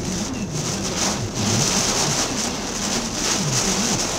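Heavy rain pelting a moving car's roof and windshield, with the wipers sweeping. The hiss of the rain swells and dips, and a low wavering hum rises and falls beneath it.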